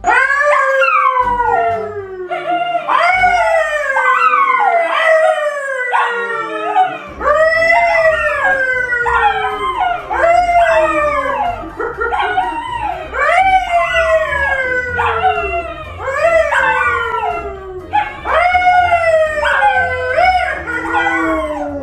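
A dog howling over and over: a long run of drawn-out calls, one every second or so, each sliding down in pitch.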